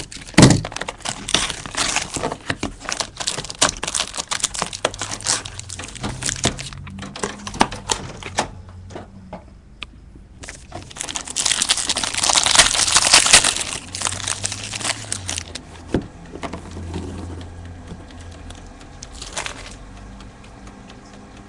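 Plastic wrapping on a trading-card box and pack crinkling and tearing as it is opened: a run of sharp crackles, then a louder stretch of rustling and tearing in the middle, and one last crackle near the end.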